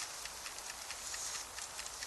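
Wood campfire crackling: irregular sharp little pops and ticks over a steady hiss.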